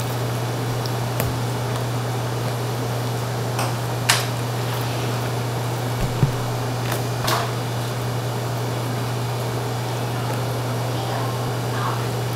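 Steady low hum of kitchen ventilation, with a few short knocks and handling sounds about four, six and seven seconds in as a duck is skinned and boned by hand on a wooden chopping block.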